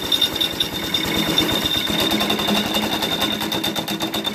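Tecumseh 6 hp single-cylinder four-stroke go-kart engine running with a rapid, even beat. About halfway through it revs up, and the centrifugal clutch engages and drives the raised rear wheel through the chain.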